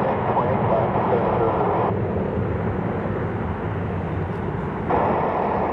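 Twin-engine widebody jetliner's engines at climb power after takeoff: a steady jet rumble and roar.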